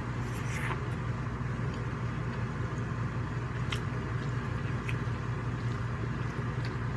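RV air conditioner running with a steady low hum and rush of air. A few faint short clicks of eating sound over it.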